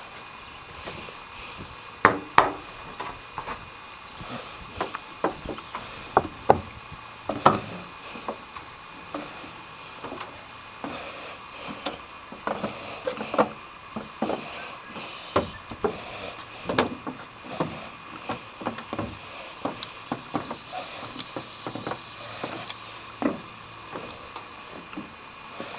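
Irregular footsteps and knocks on wooden deck boards, some louder than others, over a steady faint hiss.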